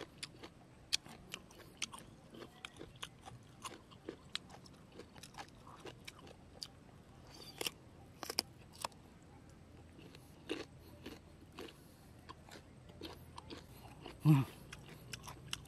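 Close mouth sounds of crunching and chewing crisp green June plum (ambarella) dipped in chili salt: irregular crisp clicks and crunches. A brief vocal sound comes near the end.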